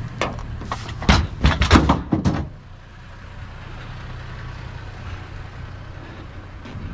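A quick run of loud clanks and knocks over the first two and a half seconds, like scrap metal being handled and dropped, then a vehicle engine idling with a steady low hum.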